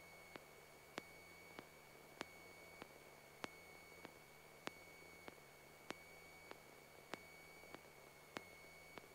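Near silence on the recorded radio audio feed: a faint steady high-pitched whine and faint sharp ticks about every 0.6 s, alternating louder and softer, electrical noise on the line between transmissions.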